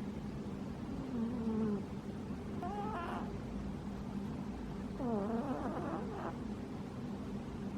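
A sleeping cat snoring, with three short wavering pitched snores about one, three and five seconds in.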